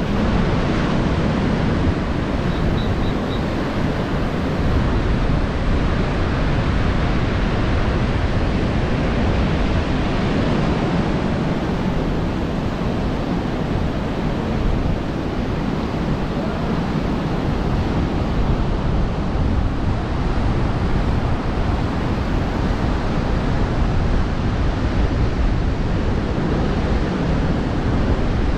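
Sea surf washing steadily onto a sandy beach, with wind noise on the microphone.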